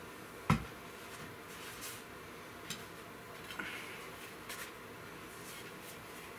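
Pieces of a handmade wooden buck saw frame being handled and fitted together: one sharp wooden knock about half a second in, then a few light clicks and taps.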